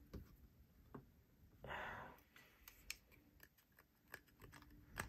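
Near silence with a few faint small clicks of a Finch Cherry Bomb folding knife's blade and pivot parts being handled, and a short soft hiss about two seconds in.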